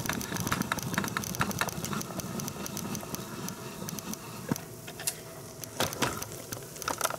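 Handling noise from a camera being lifted and repositioned: a rapid run of small clicks and rattles that thins out after about three seconds, with a few sharper knocks near the end.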